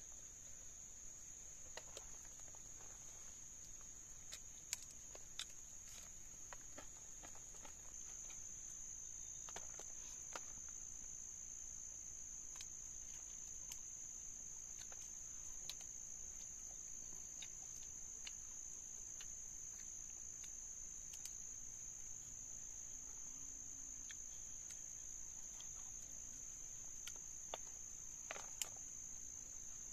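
Forest insects trilling in one steady high-pitched drone, with scattered faint clicks and taps.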